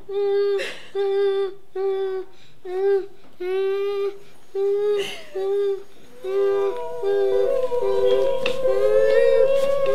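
A voice humming one note over and over in short strokes. About six seconds in, it changes to longer held notes with a second, wavering line above them.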